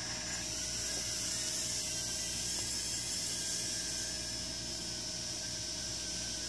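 Steady hiss with a thin, constant high whine underneath, unchanging throughout.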